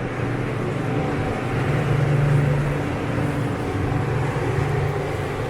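Downtown street traffic: a vehicle engine hums steadily under road noise, swelling to its loudest about two seconds in.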